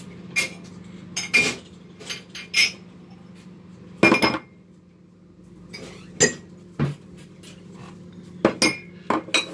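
Mugs and cutlery clinking and knocking as crockery is taken out and set down on a kitchen counter: irregular sharp clinks, with a louder clatter about four seconds in and a quick run of clinks near the end.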